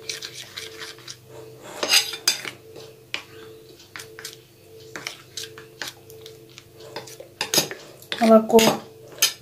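A metal spoon stirring and scraping melted chocolate glaze in a ceramic bowl, clinking against the bowl's sides in irregular clicks, with a few louder knocks.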